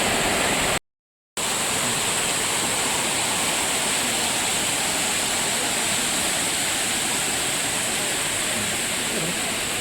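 Waterfall rushing steadily, an even wash of falling water, broken by a half-second dropout to silence about a second in.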